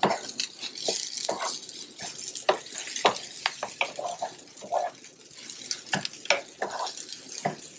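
Wooden spoon stirring and scraping jasmine rice as it toasts in hot oil in a frying pan: irregular scrapes and rattles of the grains against the pan, over a light sizzle.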